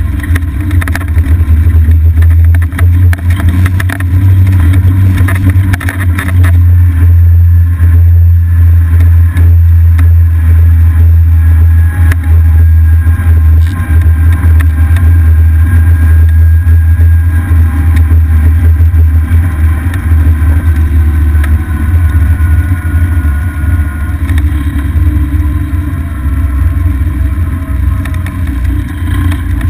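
Golf cart riding along a paved road, picked up by a camera mounted on the cart: a loud, steady low rumble of running and road noise. There are rattles early on, and a faint whine drifts slowly lower in pitch through the second half.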